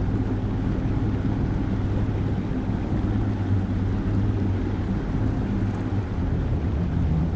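Boat motor running steadily while the boat is underway, a low steady hum with rushing wind and water noise over it.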